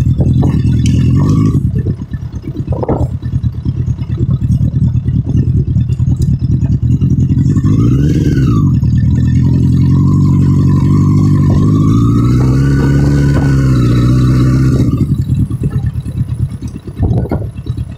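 Street motorcycle engine running while riding, its pitch climbing and dropping as it revs through the gears, with wind rush. Near the end it eases off and the sound turns rougher and quieter.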